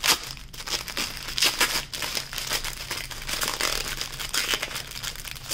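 Clear plastic packaging around packets of diamond painting drills crinkling and rustling as it is handled, a run of irregular crackles.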